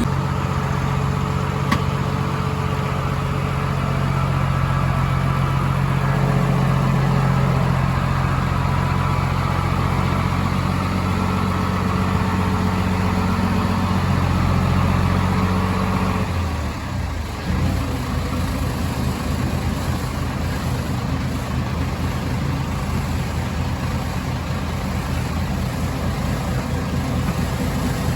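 Motor vehicle engine running steadily. Its note changes about two-thirds of the way through, after a brief dip in level.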